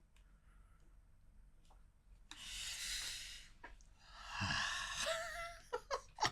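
A person's long breathy gasp about two seconds in, then a second, longer breathy exhale about four seconds in with a faint voice in it.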